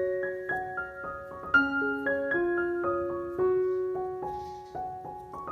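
Background piano music: a gentle melody of single notes, each struck and fading as the next begins.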